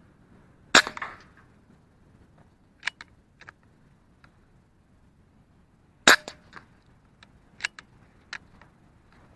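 Two rifle shots, about five seconds apart, each a single sharp crack. Several lighter clicks and knocks follow each shot.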